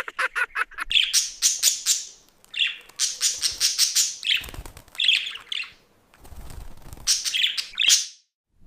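Budgerigar chattering: quick high chirps and warbles in four runs with short breaks between them.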